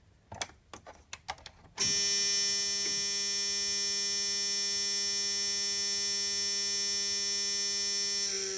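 A few clicks, then the 2000 Dodge Ram 3500 van's dashboard warning buzzer sounds one steady, unbroken buzz for about seven seconds after the key is turned to on, cutting off near the end.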